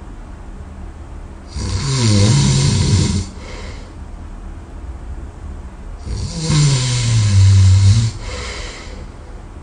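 A person snoring loudly in sleep: two long snores about four and a half seconds apart, each a low buzz that drops in pitch, with softer breathing between them.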